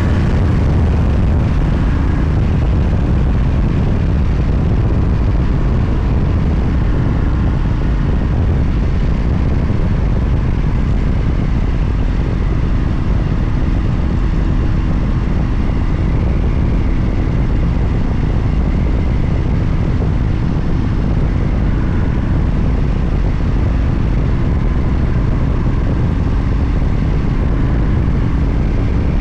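Motorcycle running steadily at cruising speed, its engine drone mixed with a heavy rush of wind over the microphone.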